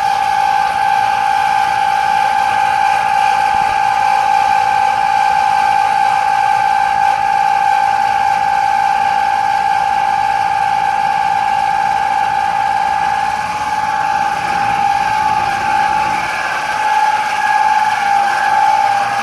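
Air conditioner running with a steady, high-pitched whine over the rush of its fan. Near the end the whine wavers slightly in pitch and loudness.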